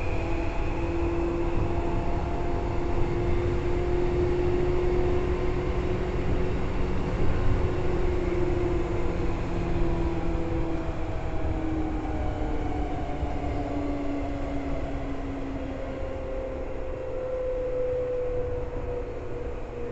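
Seibu 2000 series electric train running, heard from inside the car: a steady rumble of wheels on rail under the whine of the traction motors and gears. The whine's pitch slowly falls over the second half and the noise eases a little.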